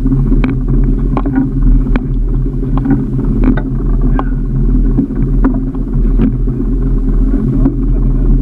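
Boat engine running steadily with a low, even hum, with scattered short clicks and knocks over it.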